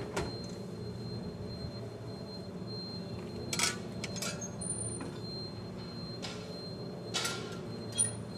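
Steady low hum of factory machinery, with a handful of short, sharp metallic clanks scattered through it, two of them close together near the end.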